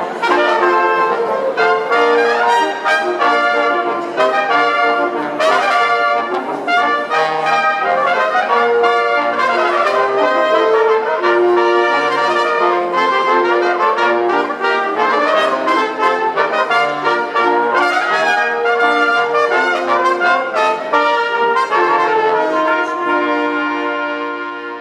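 Brass ensemble of trumpets, French horn and trombone playing a piece of sacred music, held chords and moving lines, fading out near the end.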